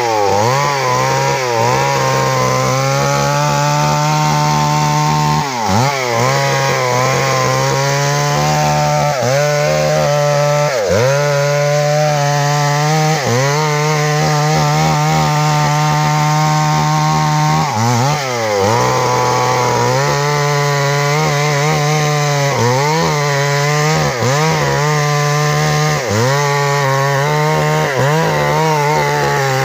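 Stihl MS382 two-stroke chainsaw running at full throttle while cutting into a large tree trunk. Its engine pitch dips briefly under the load and recovers about six times, then falls off the throttle at the very end.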